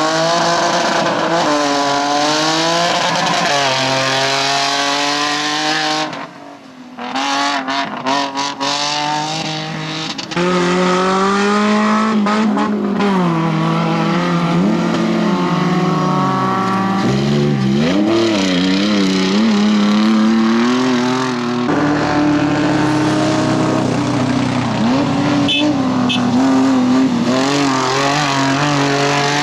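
Off-road racing 4x4 engines revving hard and climbing through the gears, the pitch rising and dropping again and again. It comes as a string of short clips that cut from one vehicle to another, with a brief quieter gap about six seconds in.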